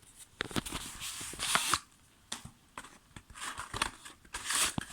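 Paper leaflets and their packet rustling and crinkling as they are pulled out by hand. It comes in two spells of handling with a short pause about two seconds in.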